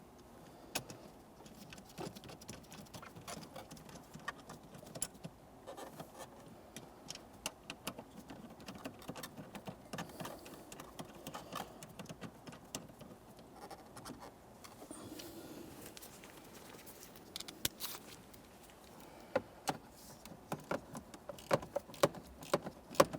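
Faint, irregular clicks and light metallic taps of a hand tool working the steering column's mounting bolts as they are snugged up. The clicks come sharper and more often near the end.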